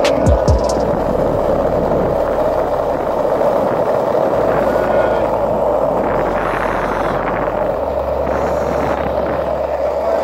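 Skateboard wheels rolling steadily over asphalt, a continuous gritty rumble, with a few sharp knocks in the first second.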